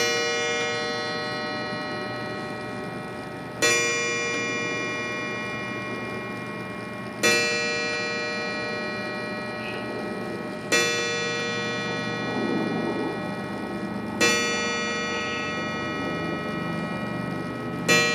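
Seth Thomas 8-day time-and-strike mantel clock striking on its coiled wire gong: six slow strokes about three and a half seconds apart, each ringing on and fading until the next.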